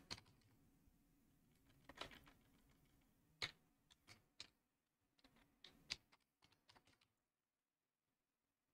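Faint computer keyboard keystrokes: about ten separate, unhurried taps as a short word is retyped, stopping about seven seconds in.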